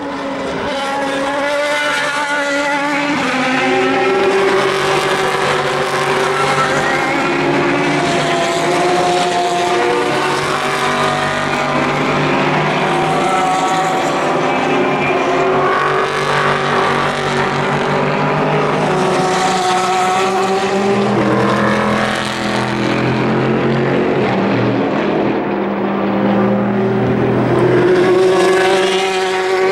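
Several endurance race cars' engines running hard, out of sight. Their overlapping pitches keep rising and falling as the cars accelerate and lift through the corners.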